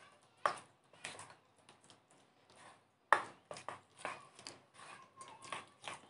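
Metal spoon stirring thick semolina (suji) batter in a stainless steel bowl: irregular clinks and scrapes of the spoon against the bowl, some of them briefly ringing.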